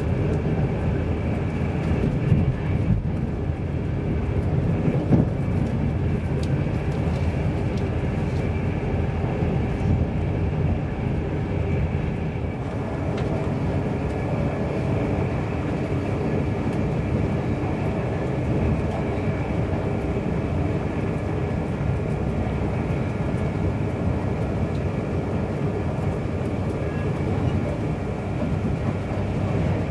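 Steady running noise inside a Mark 4 passenger coach of an InterCity 225 train at speed: a continuous rumble of the wheels on the rails with a faint steady high whine over it.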